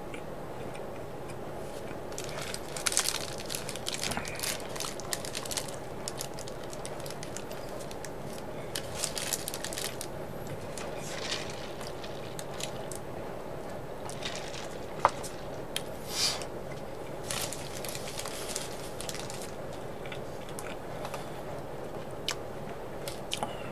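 A person eating: scattered short crunching and chewing noises and sips of a drink through a straw, over a steady low hum.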